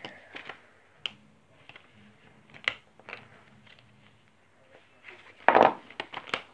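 Fingerboard's plastic and card packaging being handled and cut open: scattered small clicks and taps, then one loud crackle of plastic about five and a half seconds in.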